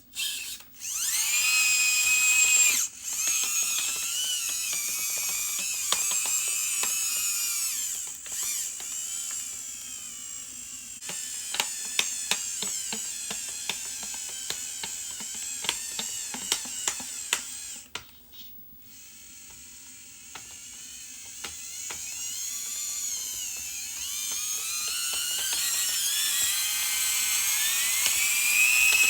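Small electric motors and gearing of radio-controlled construction models whining, the pitch rising and falling as the throttle changes. A stretch of rapid clicking runs through the middle, the sound drops out briefly about two thirds of the way through, and a whine climbs again near the end.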